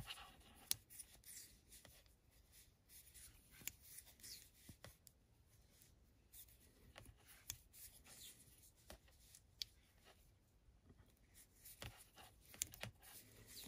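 Faint, irregular clicks of metal circular knitting needles touching, with the soft rasp of bulky cotton yarn drawn over them as knit stitches are worked.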